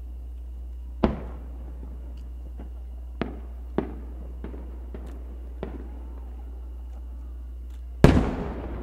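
Aerial firework shells bursting: a sharp bang about a second in, a string of smaller bangs between three and six seconds, and a loud boom near the end that trails off in a long echo.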